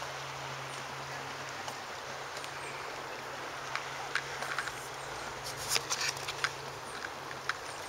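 Outdoor ambience: a steady hiss with a low hum underneath, and from about four seconds in a scatter of sharp clicks and taps.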